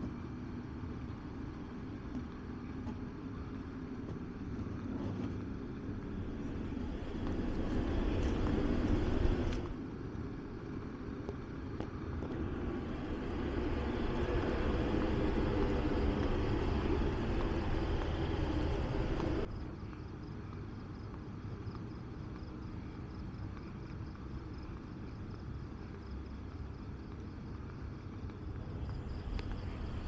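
Outdoor background noise with a steady low rumble, louder in the middle stretch and changing abruptly about ten and twenty seconds in.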